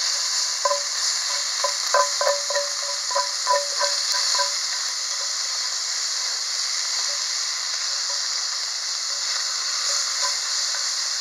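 Bacon sizzling in a hot cast iron Dutch oven while a spatula stirs it. For the first few seconds the spatula makes a quick run of ringing knocks against the pot, then only the steady sizzle goes on.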